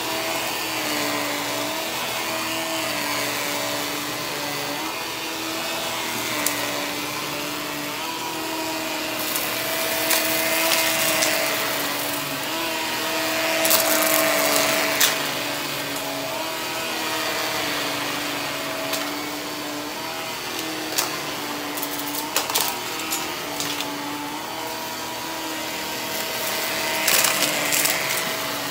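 HART upright vacuum cleaner running on carpet, its motor hum dipping and rising slightly as it is pushed back and forth. Scattered sharp clicks and rattles as it picks up debris, briefest around the middle and clustered near the end.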